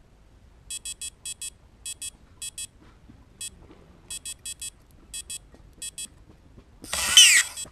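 Carp bite alarm giving short high-pitched beeps in irregular clusters as line is pulled through it, the sign of a fish picking up the bait and starting a run. Near the end comes a brief, louder rushing sound with a rising whine.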